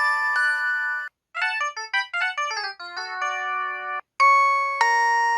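Built-in alert jingles of an IM-S640S mobile phone: short synthesized electric-piano-like melodies. A held chord fades out about a second in, a quick run of short notes follows, then two sustained chords sound near the end.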